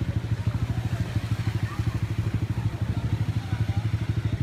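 Small engine idling close by with a steady, rapid throb of about a dozen beats a second.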